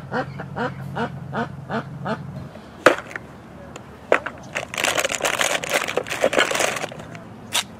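Plastic bait packaging crinkling and rustling as hands rummage in a plastic tackle box, filling the second half, with a couple of sharp clacks. Before that, a run of short rising chirps repeats about three times a second over a low steady hum.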